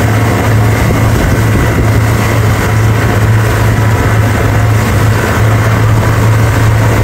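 Towing motorboat's engine running steadily at speed, a constant loud low hum, with the rush of water from the boat's wake.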